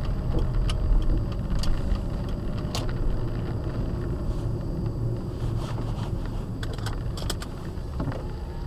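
Steady low rumble of a car's engine and tyres on a wet road, heard from inside the cabin, with a few scattered sharp ticks as rain strikes the windshield.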